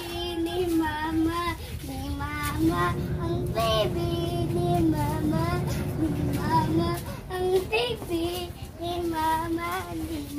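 A child's voice singing a tune, with held notes that rise and fall between phrases.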